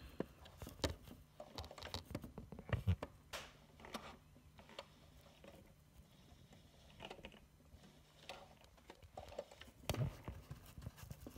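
Sewing machine with a walking foot being worked slowly: irregular light clicks and knocks from the needle and feed mechanism, over a faint steady hum that stops about three quarters of the way through.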